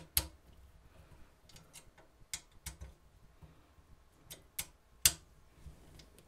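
Scattered light metallic clicks and taps of a hex key working the small screws on a 3D printer's bed bracket and brass lead-screw nut, irregular, with the two loudest just after the start and about five seconds in.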